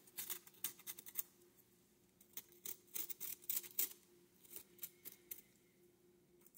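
Small carving knife cutting and scraping into pumpkin rind and flesh, making short, crisp, irregular scratching clicks in several bursts.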